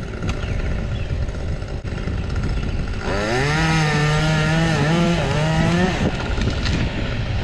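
Chainsaw running, revved up to a high steady pitch about three seconds in for roughly three seconds, then let back down to a lower running sound.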